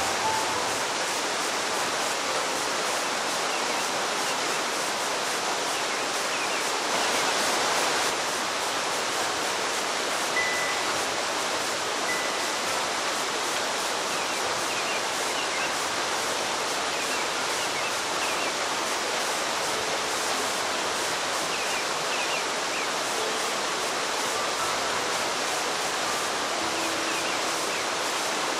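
River rapids rushing over boulders: a steady, even wash of white water, swelling slightly about seven seconds in. A few faint, short high notes sound now and then over it.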